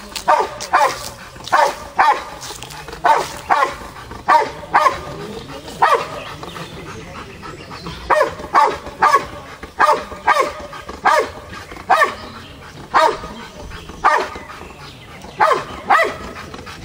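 Belgian Malinois barking at a decoy held in a hide, guarding him in the ring-sport search-and-bark. The barks are sharp and repeated, mostly in quick pairs at one or two a second, with a pause of about two seconds around the middle.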